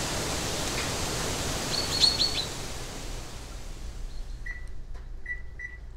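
Eggs frying in a pan, a steady sizzling hiss that fades out about three seconds in. A quick cluster of high chirps comes about two seconds in, and a few short high squeaks follow in the second half.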